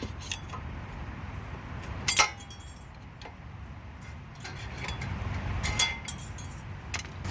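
Light metallic clinks and several sharp clicks as thin steel brake pad clips are popped off a disc brake caliper bracket, with the loudest click about two seconds in.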